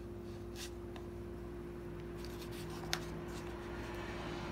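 Pages of a large hardcover book being turned by hand: paper rustling, with one sharp tap about three seconds in, over a steady low hum.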